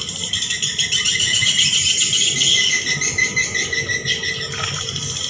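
Swiftlets calling: a dense, continuous chorus of high-pitched twittering and chirping, with quick repeated notes.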